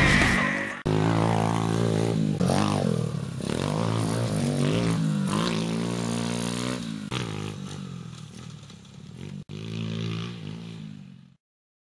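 Pit bike engine revving up and down as it is ridden around a dirt track, with two abrupt breaks, one about a second in and one near the end, before the sound fades out.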